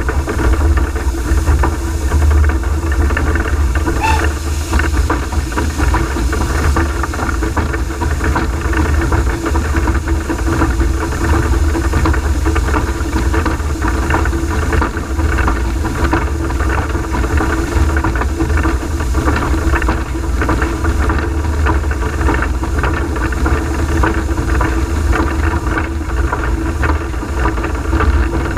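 Cab noise of the Peckett & Sons industrial steam locomotive Ashington No.5 on the move: a loud, steady low rumble with constant rattling and clatter on the footplate.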